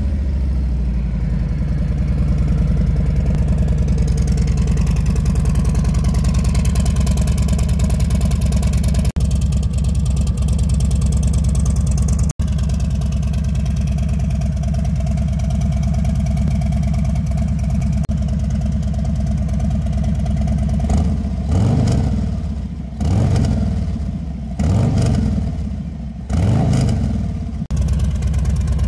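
Harley-Davidson Fat Bob 114's 1.9-litre Milwaukee-Eight V-twin idling steadily through a Cobra USA 2-into-1 exhaust. Near the end it is revved four times in quick succession, each rev rising and falling back to idle.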